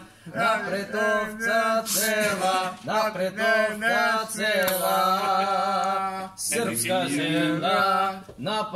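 Man singing a Serbian song a cappella, in long held notes that waver in pitch, with short breaks for breath.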